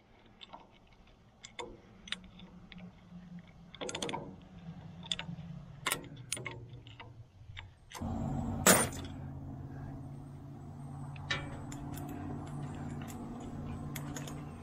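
Scattered metal clicks and clinks of an adjustable wrench working the bolts of an engine's thermostat housing. About eight seconds in, a motor starts and keeps running with a steady low hum, and a sharp clack comes just after it starts.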